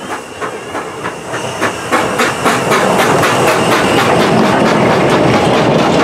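Hunslet Austerity 0-6-0ST saddle-tank steam locomotive passing close by at low speed, running light engine. Regular beats of about four or five a second come with a steady hiss of steam, growing much louder about two seconds in as the engine comes alongside.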